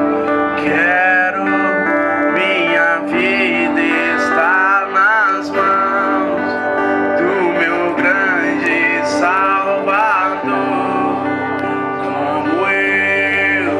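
A song with a singing voice over guitar accompaniment in a country style, the singer's notes wavering with vibrato.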